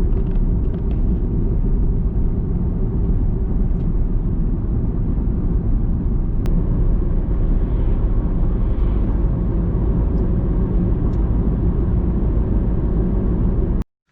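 A steady low rumbling noise with no speech, cutting off suddenly near the end.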